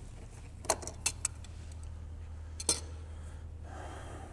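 Metal hand tools, wrenches, clinking as they are handled: three quick sharp clinks about a second in, then one more about a second and a half later, over a steady low hum.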